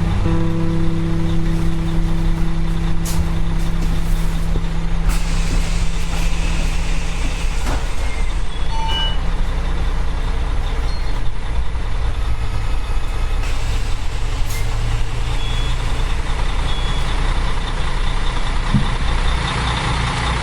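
School bus engine running steadily with a low drone, joined about five seconds in by a broad hiss.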